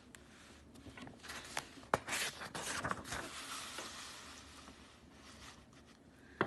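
Faint rustling of paper with a few light clicks, from the pages of a picture book being handled and turned, for about three and a half seconds.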